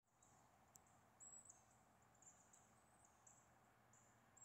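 Near silence: faint outdoor ambience with thin, high-pitched chirps repeating irregularly.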